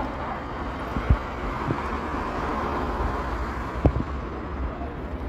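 Steady street traffic noise with a distant approaching light-rail tram. There are two short low thumps of wind on the microphone, about a second in and near four seconds.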